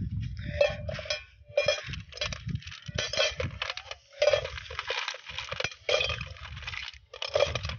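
Sea snails in their hard shells dropped one at a time into a metal cooking pot, clinking and clattering against the metal and each other, about one drop a second.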